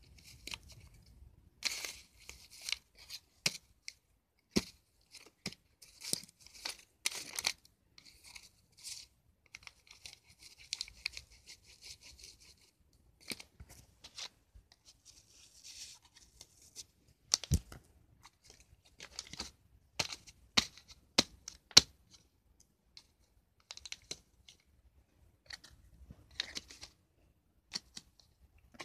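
Lined notebook paper being stabbed and torn with a pen: irregular rips and crinkles, broken by sharp knocks, the loudest a little past the middle.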